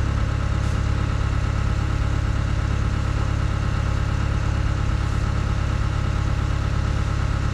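An engine running steadily at a constant speed, with a deep, even hum and no change in pitch.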